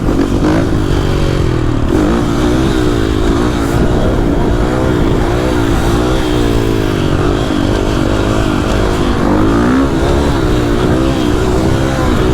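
Motorcycle engine running hard, its pitch rising and falling again and again as the throttle is worked while riding.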